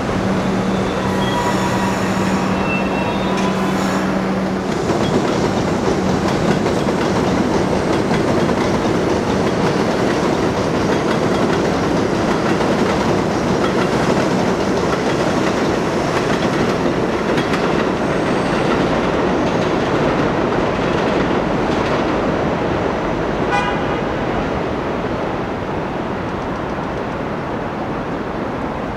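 New York City Subway 1 train running on elevated steel track: a steady noise of wheels and cars passing. A steady low hum runs through the first few seconds, a brief high tone sounds about 24 seconds in, and the noise eases off near the end.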